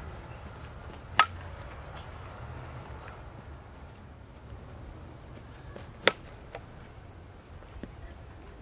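A softball bat striking pitched softballs: two sharp cracks of contact, about a second in and again about five seconds later, over a low steady background rumble.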